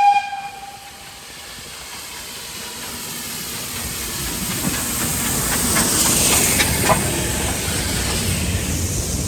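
Steam train: a brief whistle note at the start fades within a second, then steam hiss and train noise grow steadily louder over several seconds, with a few sharp clanks, and hold at that level.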